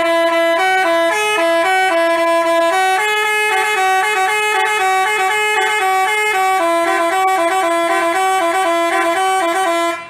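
Telolet basuri multi-tone bus horn playing a quick stepping melody of bright, reedy notes, which cuts off suddenly just before the end.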